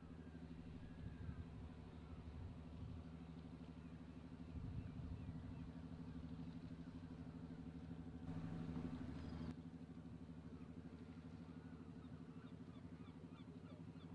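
Steady low diesel engine drone from a large motor yacht, swelling briefly a little over eight seconds in, with faint bird chirps above it.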